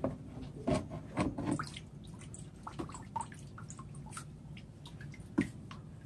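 Water trickling and dripping down a small vivarium waterfall, over a low steady hum. Several knocks and scrapes about a second in and one sharp knock near the end as the rock section of the waterfall is handled and lifted.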